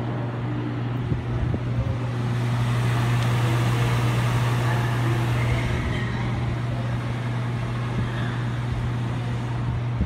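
Floor-standing air conditioner running: a steady rush of air from its blower over a constant low hum. The air rush grows louder for a few seconds in the middle.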